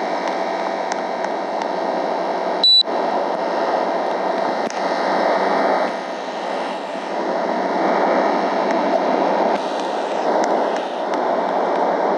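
Air conditioner running with a steady rushing noise, with one short, high-pitched beep about three seconds in.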